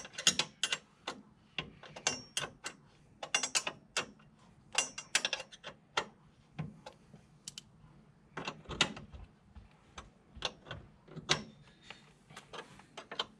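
Hand tools clicking and clinking on metal in irregular bursts as the bolts of a front strut tower brace are fitted to a BMW E46.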